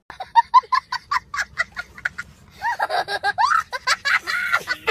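A young child laughing: first a quick run of short high "ha" bursts, about five a second, then longer squealing laughs that swoop up and down in pitch.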